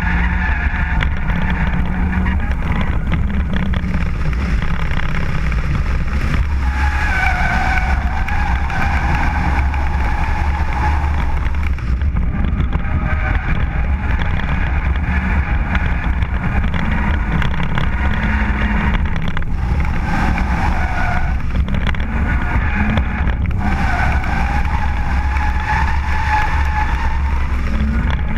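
BMW drift car driven hard through slides, its engine running at high revs, with tyre squeal in several long stretches as it drifts. A steady low rumble of wind buffets the outside-mounted microphone.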